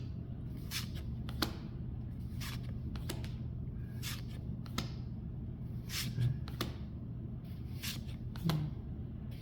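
Pokémon trading cards being flipped through by hand, one at a time: short, irregular card snaps and slides about every half second, over a steady low hum.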